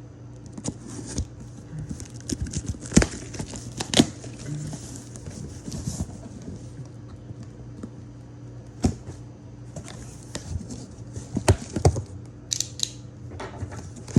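A package being opened by hand: cutting, tearing and crinkling of packing material, with irregular sharp clicks and knocks.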